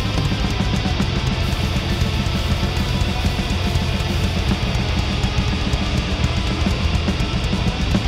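Live blackgaze band playing a loud, dense instrumental passage: distorted electric guitars strummed in a wall of sound over bass guitar and drums, with no vocals.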